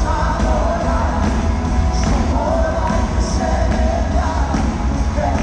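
Live worship band playing through the arena's sound system, with strong bass, a steady drum beat and a lead vocal, echoing in the large hall.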